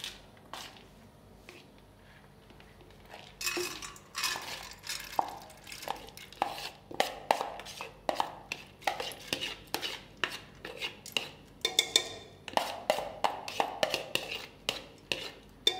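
A metal spoon scraping and tapping against a plastic bowl over and over, knocking washed split pigeon peas (arhar dal) out of it into an aluminium pressure cooker. It is mostly quiet for the first three seconds, then a short rush of falling grains, then the taps come about two a second.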